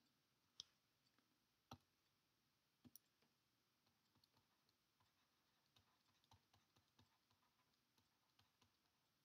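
Near silence with faint scattered clicks and ticks: a stylus tapping and stroking on a tablet screen while writing by hand. There are a few sharper taps in the first three seconds, then a run of small ticks.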